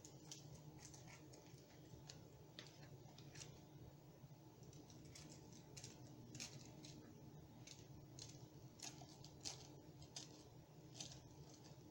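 Faint, irregular small clicks and crinkles of gold gift-wrap paper being handled and trimmed at the edges of a papier-mâché toilet model, over a quiet room hum.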